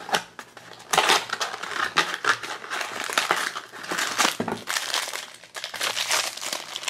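A small cardboard blind box being torn open by hand: an irregular run of crackling, crinkling and ripping packaging, with louder tears about one, two and three seconds in, as a mini figure is worked out.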